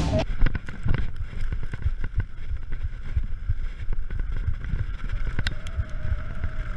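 Mountain bike rolling fast down a bumpy dirt trail: wind buffeting the camera microphone in a low rumble, with many quick knocks and rattles from the tyres and frame over the bumps.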